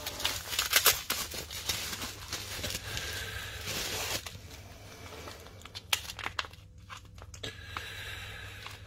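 Plastic bags crinkling and rustling as they are handled, with many short sharp crackles, busiest in the first second or two.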